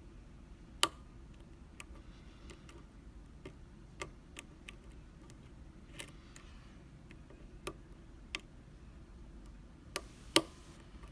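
Irregular, sharp metallic clicks of lock picks working the pins of a BKS euro cylinder, a dozen or so spread unevenly, with a loud one about a second in and a loud pair near the end.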